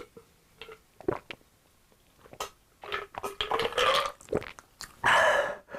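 Close-miked mukbang eating sounds: chewing and wet mouth clicks, a denser stretch of mouth noise with a held hum in the middle, and a loud breathy vocal sound near the end.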